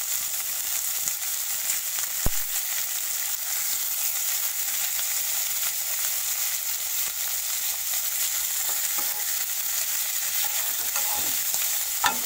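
Rohu fish pieces frying in hot mustard oil in a wok: a steady, high sizzling hiss. There is a sharp click about two seconds in, and a knock near the end as a lid goes onto the pan.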